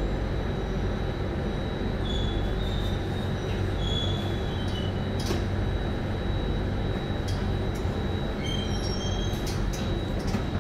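SMRT Circle Line C830 metro train running, heard from inside the carriage. There is a steady rumble of wheels on rail under a constant high whine, with a few brief faint wheel squeals and occasional light ticks.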